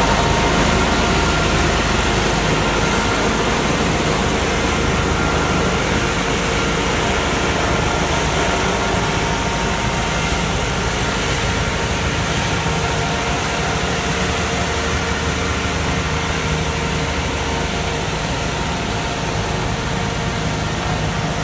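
Ditch Witch RT120 Quad tracked trencher's diesel engine running steadily, a continuous drone with several held tones, easing slightly in loudness toward the end.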